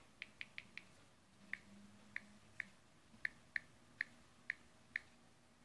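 Samsung Galaxy Note 3's on-screen keyboard click sounds as a password is typed: about a dozen short, faint ticks at an uneven typing pace, a quick run of four at the start, then slower single taps.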